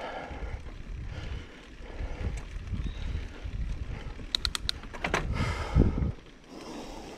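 Mountain bike rolling along a dirt forest trail: wind buffeting the microphone over the rumble of the tyres, with a quick run of sharp clicks about four seconds in and a louder rough patch just after.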